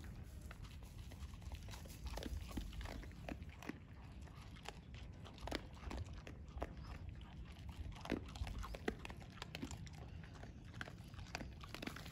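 Dogs eating dry kibble: irregular sharp crunches and clicks of teeth on hard pellets, a few at a time, over a steady low background rumble.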